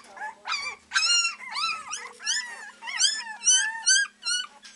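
A litter of three-week-old beagle puppies baying and yelping in short, high-pitched, arching cries, about three a second, several pups overlapping one another.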